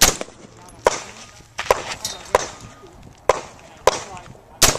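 Rifle shots fired in a steady string, about one a second, seven or eight in all, each followed by a short fading tail.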